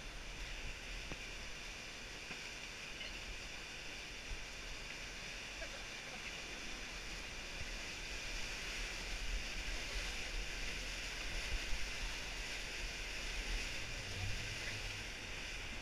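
Rushing whitewater of a river rapid around a kayak: a steady hiss of broken, churning water with a low rumble underneath.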